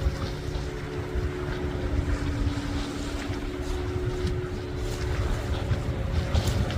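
A motorboat engine humming steadily on the water, over wind rumbling on the microphone.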